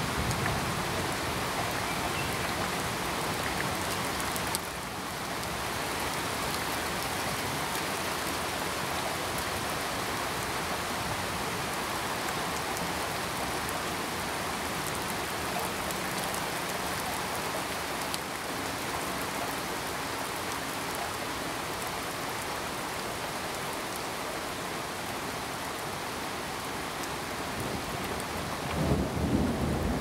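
Steady heavy rain falling in an even hiss, with a low rumble of thunder swelling near the end.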